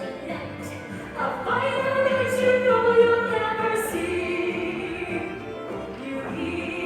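Several singers holding long, sustained notes over an orchestra, swelling about a second and a half in.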